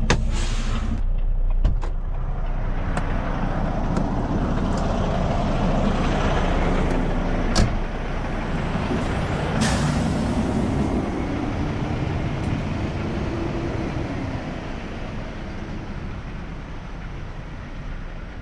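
Semi truck's diesel engine running, its pitch shifting, with a short air-brake hiss near the start and a few sharp clicks and hisses along the way.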